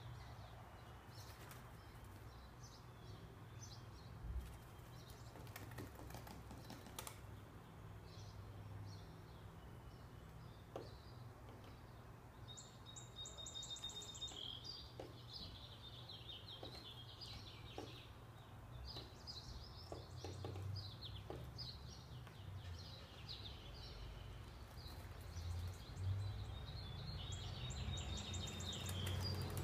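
American robin pecking and fluttering against a car windshield at its own reflection: irregular sharp taps on the glass. Birds chirp throughout, with bursts of rapid chirps about halfway through and again near the end, over a low steady rumble.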